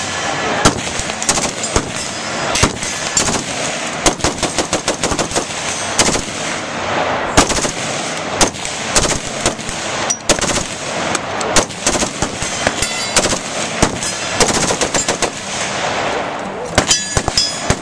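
Two AR-15-pattern carbines firing at the same time, fast runs of shots mixed with single shots and overlapping each other.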